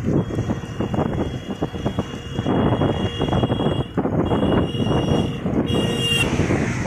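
A vehicle moving slowly, with engine and road noise buffeting the microphone. A thin steady high tone runs through most of it and stops shortly before the end.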